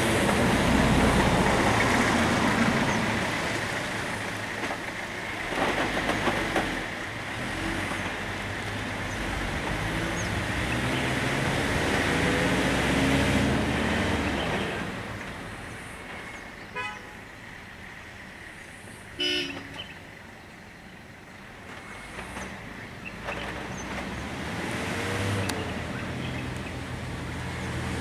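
Idling lorry and car engines on a road, a steady low rumble that is louder in the first half and eases off in the middle. A brief horn toot sounds about two-thirds of the way through.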